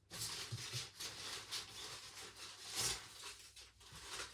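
Packaging being handled and pulled off a new tumble dryer: continuous rustling and rubbing, with a few light knocks.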